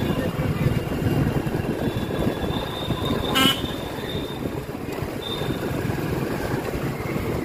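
Motorcycle engine running with road and street traffic noise during a slow city ride, with a short horn beep about three and a half seconds in.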